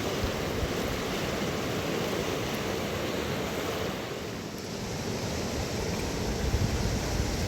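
Steady rushing of a fast river, with low wind rumble on the microphone; the rush dips slightly about four seconds in.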